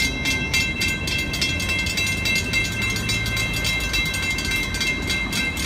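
Railroad grade-crossing warning bell ringing in rapid, even strokes while the crossing signals are still active, over a low rumble of traffic.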